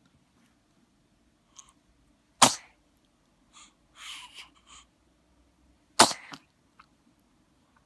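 Two short, sharp sneezes about three and a half seconds apart, with softer, fainter noises between them.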